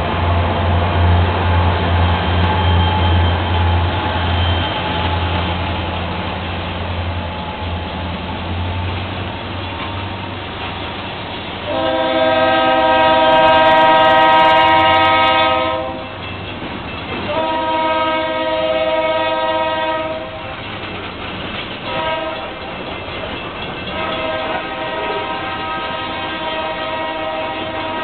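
EMD GP40 diesel locomotives' engines drone as they pass and fade away, then the lead locomotive's air horn sounds the grade-crossing signal: two long blasts, a short one and a final long one. Under it, loaded tank cars roll by with a clickety-clack of wheels over rail joints.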